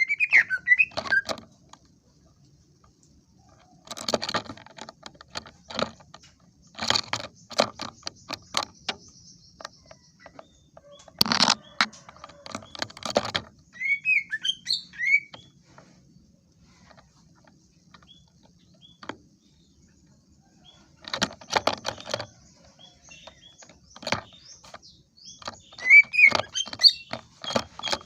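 Green leafbird (cucak ijo) singing in bursts of rapid, chattering notes mixed with short whistled glides, with pauses of a few seconds between the phrases.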